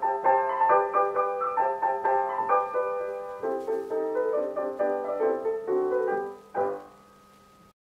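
Piano playing the closing instrumental bars of a children's song, ending on a final chord about six and a half seconds in that rings briefly and fades out.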